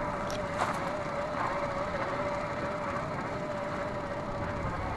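Electric motor of an RC crawler whining steadily at a constant pitch that wavers slightly, with a light knock about half a second in.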